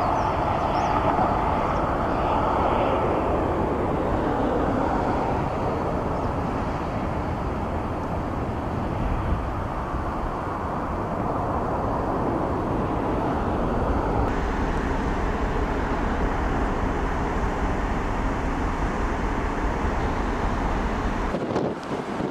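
Steady outdoor background noise with a heavy low rumble, like wind and distant engines. The rumble drops away suddenly near the end.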